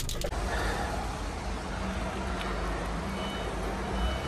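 Forklift unloading pallets from a lorry's trailer, an engine running steadily underneath, with a reversing alarm beeping in short, faint pulses from about three seconds in.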